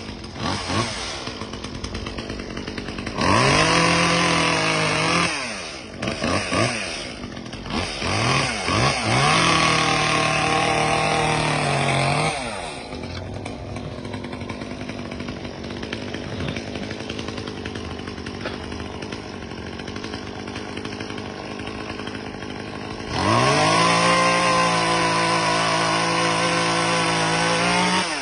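Two-stroke chainsaw alternating between idle and full throttle: revved up and held high three times, about three seconds in, around eight seconds in and again near the end, with a few short blips of the throttle in between and a long steady idle in the middle.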